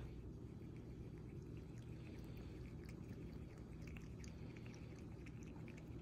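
Faint water trickling and dripping from a cordless smart pet water fountain as it fills its bowl: many small, irregular drips over a low, steady hum.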